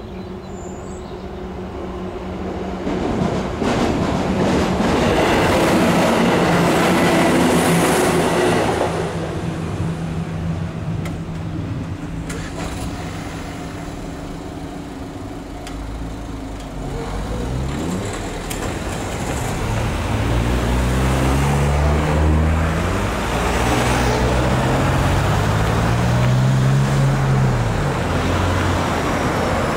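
A train passes over a level crossing, loudest from about three to nine seconds in, then fades. From about halfway through, cars pull away across the crossing with their engines revving up as they accelerate.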